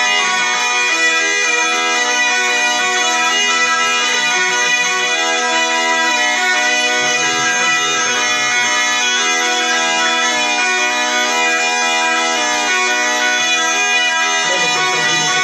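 Zampogna, the southern Italian bagpipe, playing a melody of changing notes over its steady drone.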